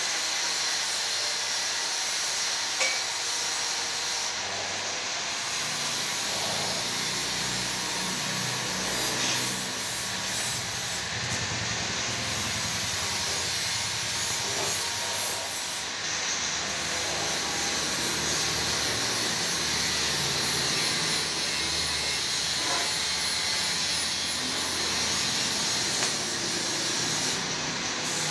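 Electric arc welding on steel square tubing: a steady crackling hiss from the arc with the welding machine's low hum beneath it, starting a few seconds in and stopping near the end. A single sharp click comes just before the welding starts.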